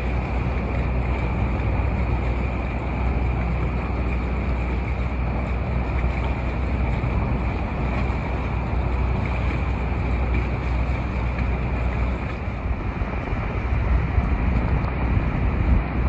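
Sailboat under way on the river: a steady low drone with wind buffeting the microphone and water moving past the hull.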